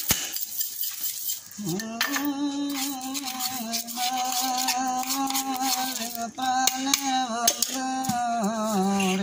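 A tin mug of chanachur is shaken to mix it, rattling with quick clicks. A couple of seconds in, a voice starts singing long, wavering held notes over the rattle, ending on a lower note.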